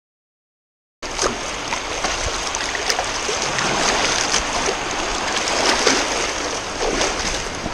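Shallow sea surf washing and fizzing over hands and a camera held in the foam at the water's edge, with many small splashes. It starts abruptly about a second in.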